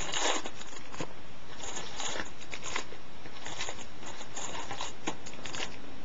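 Foil-wrapped trading-card packs rustling and clicking as they are pulled from a hobby box and set down in a stack: a scatter of short, irregular crinkles and taps over a steady hiss.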